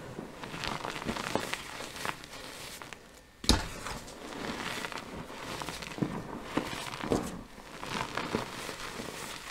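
Hands crushing and crumbling dyed gym chalk powder and lumps: a continuous run of dry, gritty crunching and crackling. About three and a half seconds in, after a brief lull, comes one sharp, loud crunch, the loudest moment.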